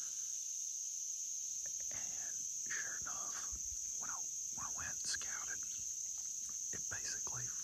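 Steady, high-pitched chorus of insects, an unbroken shrill drone.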